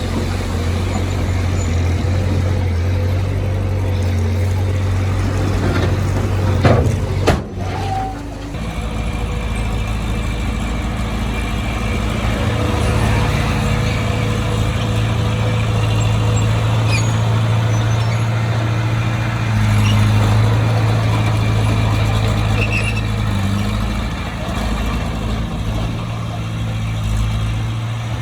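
Heavy diesel engine of construction machinery running steadily with an even low hum, with a couple of sharp knocks about seven seconds in.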